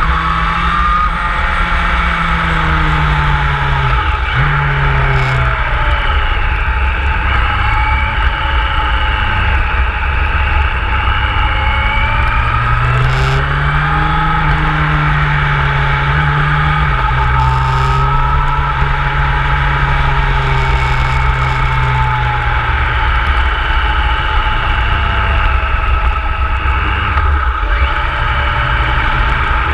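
Motorcycle engine running on the road, its pitch rising and falling with the throttle and dropping sharply about four seconds in and again near the end, as at gear changes. Under it is a constant low wind rumble on the microphone.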